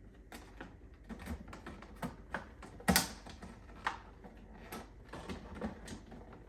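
Food packages and containers being handled and set down on refrigerator shelves: irregular clicks and knocks, the loudest about three seconds in, followed a second later by a short ringing knock.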